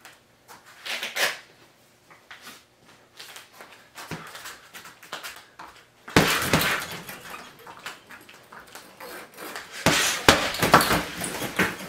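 Punches and a knee striking a hanging Everlast heavy bag: light scattered hits at first, then two loud strikes about six and ten seconds in, each followed by a metallic rattle from the bag's hanging chain.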